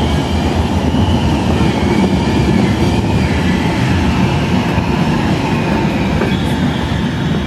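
Alstom Citadis tram standing at a tram stop: a loud, steady low rumbling noise.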